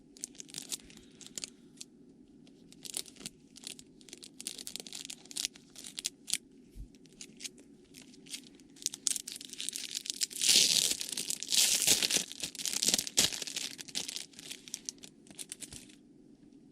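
Plastic wrapping on a pack of trading cards being torn open and crinkled by hand: scattered crackles that grow denser and louder for a few seconds past the middle, then stop shortly before the end.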